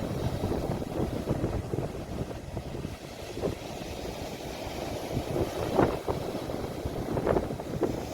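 Sea waves washing on the shore, heard as a steady rough rush, with wind buffeting the phone's microphone.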